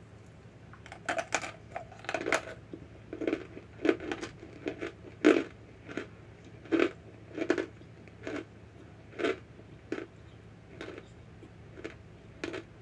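Close-up chewing of a dry piece of cornstarch: a string of crisp crunches starting about a second in, coming quickly at first and spacing out toward the end.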